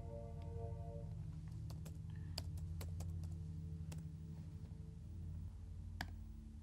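Laptop keys tapped and clicked, about ten scattered taps in the middle and one more near the end, over a low, steady background music drone.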